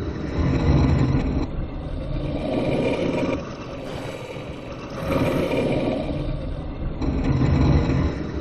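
Designed sci-fi 'time flutter' swoosh sound effect: a fluttering, wobbling rush of air-like noise that swells and fades several times, with a quieter dip near the middle.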